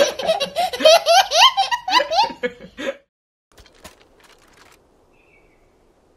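A young child's hearty belly laughter: a string of rising, breathy laugh bursts for about three seconds that then stops. A few faint clicks follow about a second later.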